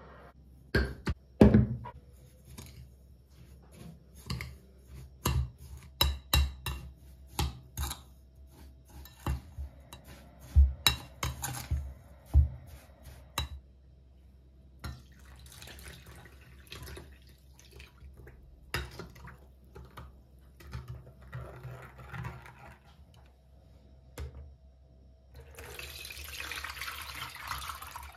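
A metal spoon knocking and scraping in a glass bowl, many sharp clinks, as lemon and orange zest is crushed with sugar. Near the end, liquid is poured and splashes through a metal sieve.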